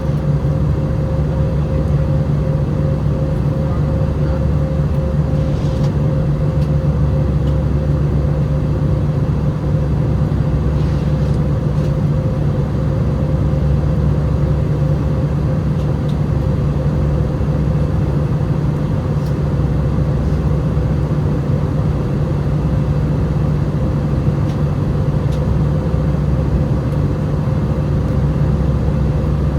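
Airbus A320 cabin noise in flight: the steady drone of the jet engines and rushing air, with a constant low hum and a steadier, higher tone running through it.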